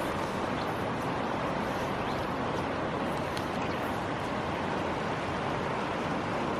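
Steady rushing of river water running over rocks and riffles.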